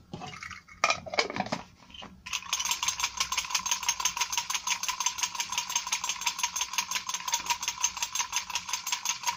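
Spray gun with thinners in its cup being shaken hard to flush it clean, its parts and the liquid rattling. A few loose clunks come first, then about two seconds in a fast, even rattle of several knocks a second sets in and keeps going.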